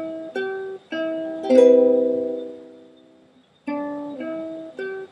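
Ukulele played slowly, string by string: a few single plucked notes, then a louder chord about a second and a half in that rings and dies away. After a brief pause, another run of single plucked notes starts.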